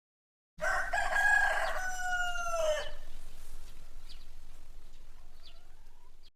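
A rooster crowing once, a long cock-a-doodle-doo that drops in pitch at its end. It is followed by a few faint, short high chirps in the background.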